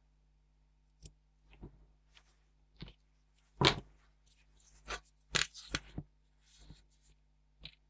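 Scattered clicks, knocks and scrapes of a ZX Spectrum circuit board being handled and turned over on a bench top, the loudest knock about three and a half seconds in, over a faint steady hum.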